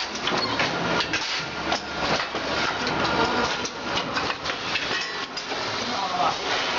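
Packaging machinery running with a dense clatter of irregular metallic knocks and clicks over a steady mechanical noise.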